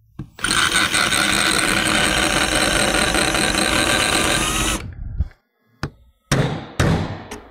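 Cordless drill running steadily as it drills out a rivet on a steel automatic-shifter frame for about four and a half seconds, then stopping. A few sharp hammer taps on a punch follow, knocking out the drilled rivet.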